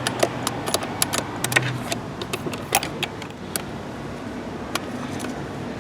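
Light metallic clicks and clinks of hand tools and small nuts as the carburetor's mounting nuts are taken off an outboard motor. The clicks come thick in the first few seconds and thin out after.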